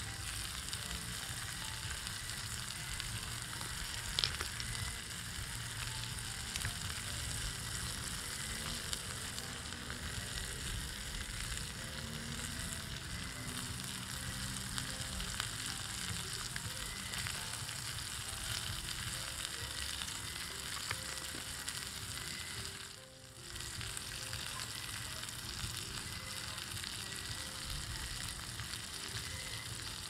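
Fish steaks, tomatoes and lemon slices sizzling steadily as they fry in a cast-iron skillet, with a short dip in level about three-quarters of the way through.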